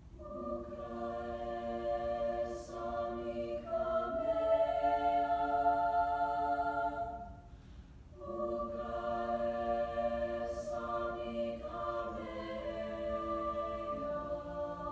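Mixed high school choir singing a cappella: long held chords that shift in pitch, a short pause a little past halfway, then a new phrase of sustained chords.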